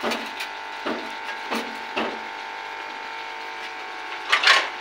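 Wooden spatula knocking and scraping against a metal wok of simmering potatoes and meat: a few separate knocks, then a longer, louder scrape near the end, over a steady background hum.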